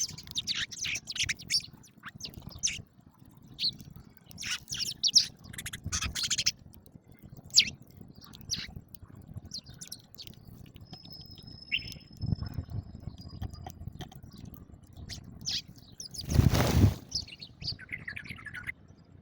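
House sparrows chirping in quick clusters of short, high chirps. Near the end there is a loud rush of noise lasting under a second.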